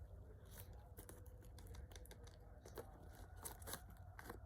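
Faint, scattered small clicks and rustles of hands handling a plastic toy vending machine and its contents.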